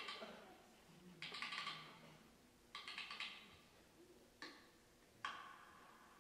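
A few short bursts of scattered audience clapping, each about half a second long, then two single sharp claps near the end, in an otherwise quiet hall.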